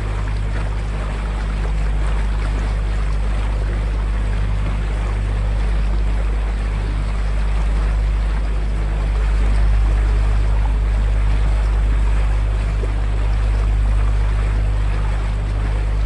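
Open canal tour boat under way: a steady low motor drone with the wash of the wake churning behind the stern.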